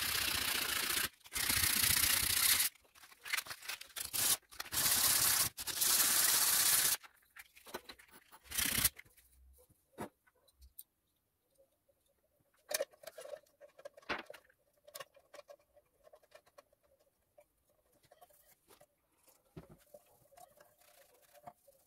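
Hand cleaning of a bench grinder: several long, harsh rubbing or scrubbing strokes over the first seven seconds, then quieter scattered rubbing and wiping with a cloth rag on the grinder's housing.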